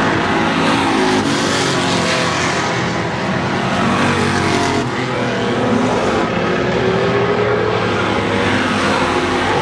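Several street stock race cars' engines running together on the track, their pitch rising and falling as cars pass.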